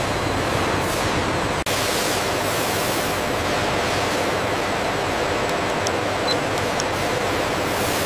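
Steady, even rushing noise of factory machinery, with a momentary dropout about a second and a half in.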